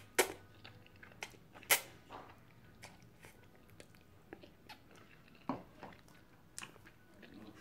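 A person slurping up and chewing lo mein noodles: wet mouth smacks and sucking sounds in scattered short bursts. The sharpest smacks come just after the start and at about a second and a half in.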